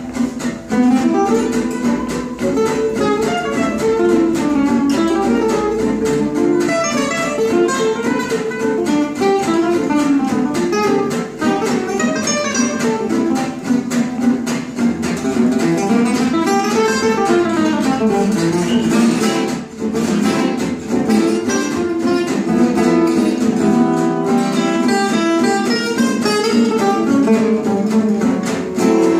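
Two acoustic gypsy jazz guitars playing a swing tune together, one picking fast single-note runs over the other's strummed rhythm.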